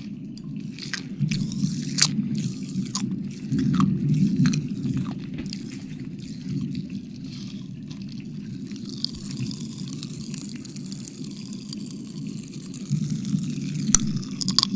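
Close-miked wet mouth sounds: licking and smacking with scattered sharp wet clicks, which thin out in the middle and pick up again near the end, over a steady low rumble.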